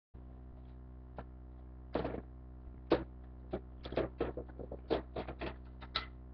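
Irregular clicks and knocks, growing more frequent from about two seconds in, over a steady low hum.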